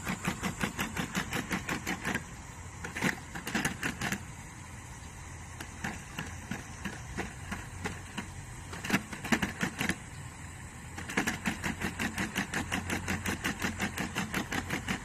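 Quadruped robot dog running: a fast, even patter of its feet over a steady motor whine. The patter eases off for several seconds in the middle, with a few louder clatters, then picks up again near the end.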